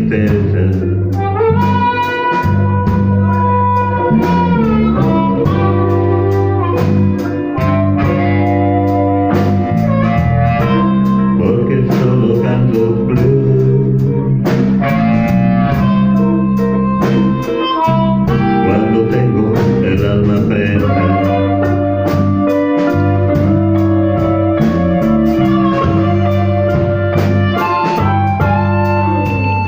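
Instrumental blues band passage: electric guitar playing a solo with bent notes over bass and a steady drum beat.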